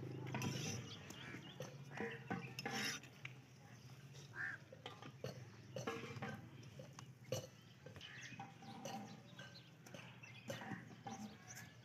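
Faint, scattered clicks and knocks from hand work with dough and cooking utensils: flatbreads being shaped and turned on an iron griddle beside a steel bowl of dough.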